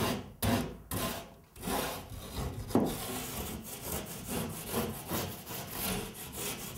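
Sheetrock plane rasping down the cut edge of a drywall sheet to shave off bumps, in repeated scraping strokes. The strokes come about two a second at first, then faster and running together.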